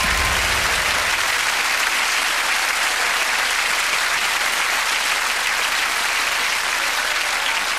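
Studio audience applauding: steady, dense clapping from a large crowd.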